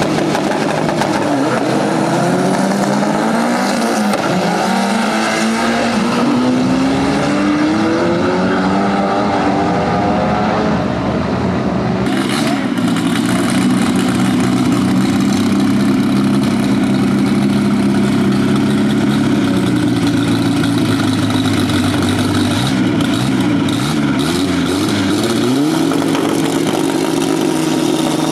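Modified drag-car engines: one revving up and down for about the first ten seconds, then, after a cut, another engine running at a steady fast idle that rises in pitch near the end.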